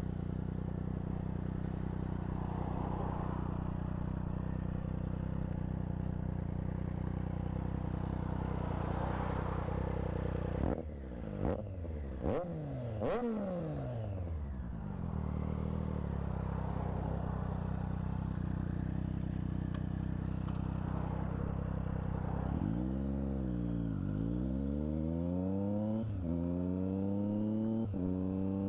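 Triumph Street Triple 765 RS's three-cylinder engine through a Delkevic aftermarket exhaust, idling steadily, then blipped with three quick revs about a third of the way in. It settles back to idle, and near the end it pulls away and accelerates, rising in pitch with two upshifts.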